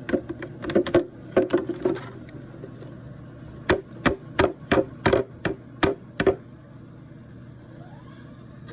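A run of sharp knocks from kitchen work, about three a second, in two bursts separated by a short pause.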